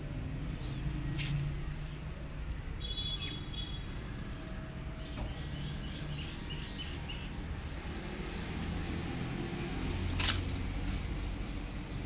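Small birds chirping in short quick series over a steady low rumble, with a sharp click about a second in and a louder one near the end.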